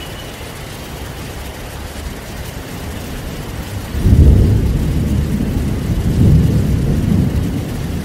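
Heavy rain hissing steadily. About four seconds in, a thunderclap breaks into a loud low rumble that rolls on for three or four seconds, swelling again twice before easing off.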